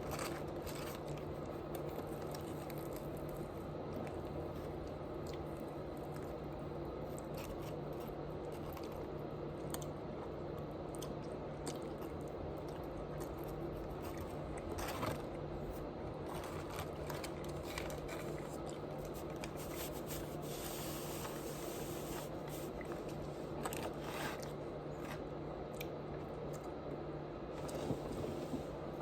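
Close-miked chewing and crunching of food, with wet squishy bites and short crackles scattered through, over a steady low hum.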